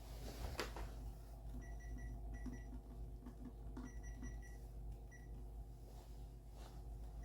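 Short, high electronic beeps in a few quick runs, over a steady low hum.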